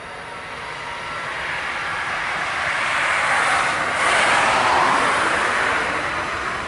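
Airbus A320 jet passing by, its engine noise swelling to a peak about four seconds in and then fading.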